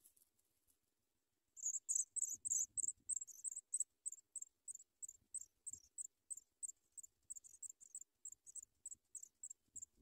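African pipit nestlings begging as the parent arrives at the nest: a fast series of thin, high-pitched cheeps starting about a second and a half in, several a second, thinning out a little toward the end.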